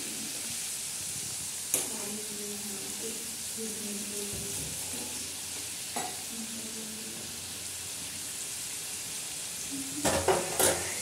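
Gujiya deep-frying in hot oil in a kadai, a steady sizzle as they are turned with a wire skimmer. There are a couple of sharp knocks, and a quick cluster of louder ones near the end.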